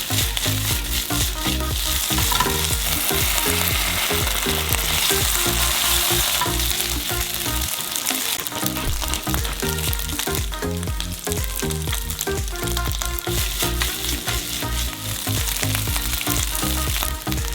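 Food sizzling as it fries in a hot pan, with stirring, over quiet background music.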